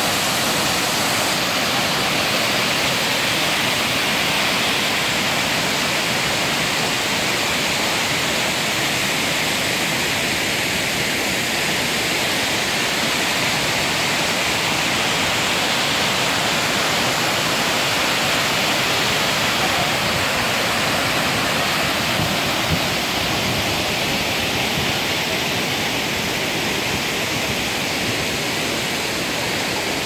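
Tortum Waterfall, a tall multi-strand waterfall plunging over a rock cliff, giving a loud, steady rush of falling water that does not change.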